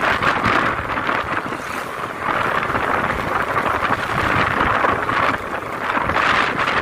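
Wind rushing over the microphone of a moving motorcycle, with road and engine noise underneath; the wind noise swells and eases several times.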